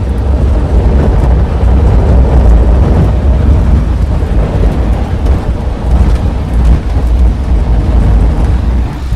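Loud, steady rumble of strong wind buffeting the microphone and a loaded Quattrovelo velomobile's shell and tyres rolling fast downhill, at about 60 km/h on an uneven road.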